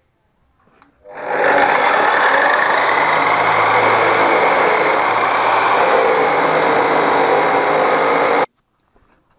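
Electric metal-cutting chop saw spinning up about a second in and cutting through a rusty steel channel, with a loud, steady grinding whine. It cuts off suddenly near the end.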